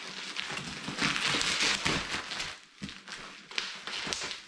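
Cardboard shipping box and its packing tape being pulled and torn at by hand: crinkling and scraping with many small taps and crackles, loudest for about a second starting a second in.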